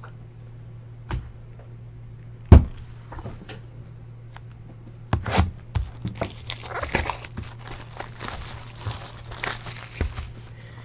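A sealed box of trading cards being handled and opened. A sharp knock comes about two and a half seconds in, then from about halfway a run of plastic wrapping crinkling and tearing.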